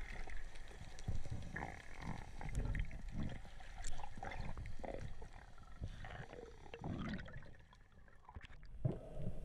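Muffled underwater rumbles, knocks and water movement as a spearfisher swims and handles a freshly speared fish.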